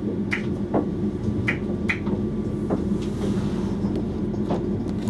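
Electric passenger train running, heard from inside the driver's cab: a steady hum with irregular sharp clicks and knocks.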